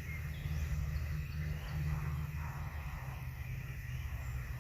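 Outdoor ambience: a steady low rumble, like wind on the microphone, with a few faint, brief bird chirps.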